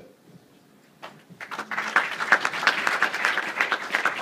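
A room full of people applauding, a dense patter of many hands clapping that starts about a second in after a brief quiet.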